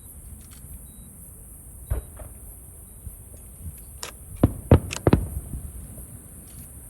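Fireworks bursting: a single bang about two seconds in, then a quick volley of about five bangs around four to five seconds in, the loudest in the middle of the volley, followed by a brief rumble.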